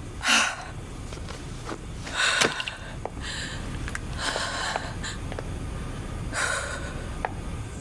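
A woman's stifled sobbing: four heavy, gasping breaths about two seconds apart.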